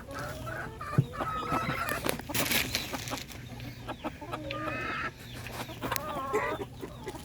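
Chickens clucking and calling over one another in short, bending calls, with a few sharp taps, the loudest about a second in.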